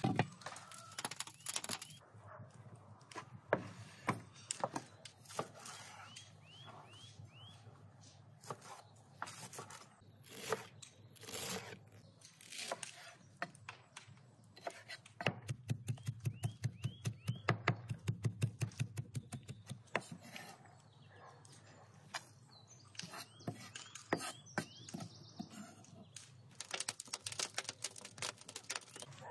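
A knife chopping fresh herbs on a wooden board in quick, even strokes, about four or five a second, for several seconds past the middle, with birds chirping now and then. Scattered knocks and clicks of food preparation come before it.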